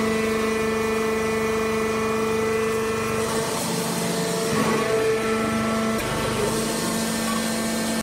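Hydraulic power unit of a sawdust and wood-shaving bagging baler running steadily, an even electric-motor and pump hum with a few soft knocks of sacks being handled partway through.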